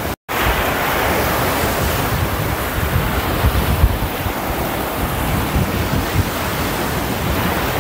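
Sea surf breaking and washing up a sandy beach, with strong wind buffeting the microphone in a gusty low rumble. The sound drops out for a moment just after the start.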